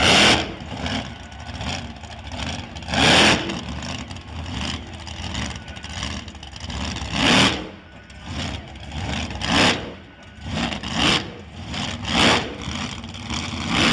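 Cool Bus wheelstander's rear-mounted supercharged, fuel-injected, alcohol-fuelled big-block Chevrolet engine, blipped several times in short, sharp revs one to four seconds apart, with a rough, lumpy idle in between.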